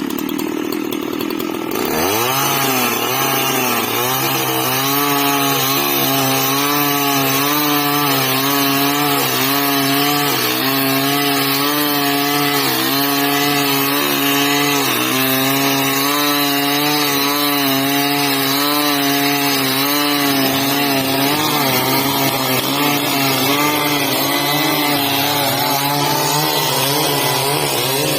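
Chainsaw revving up about two seconds in, then running at high speed while cutting wood, its pitch wavering slightly as the chain bites.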